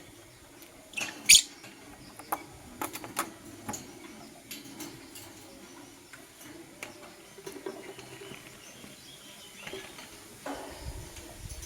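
Lovebirds giving short, sharp chirps and clicks, scattered and irregular, the loudest a brief shrill chirp about a second in.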